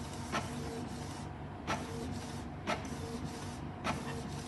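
Canon Pixma G2010 inkjet printer running a print head cleaning cycle: a steady mechanical whir with short hums and a sharp click about once a second.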